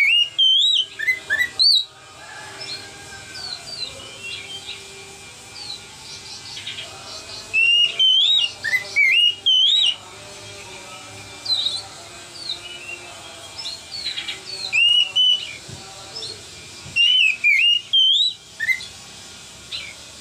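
Oriental magpie-robin (kacer) singing its loud, clear 'ngeplong' whistled song: five bursts of rising-and-falling whistles, each a second or two long, a few seconds apart, with softer chirps in between.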